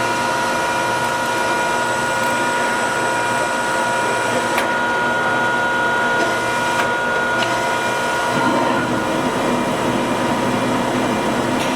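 Jones & Lamson ram-type turret lathe running with its spindle and gear train at speed: a steady whine of several tones. About eight seconds in the sound shifts, and a lower hum joins.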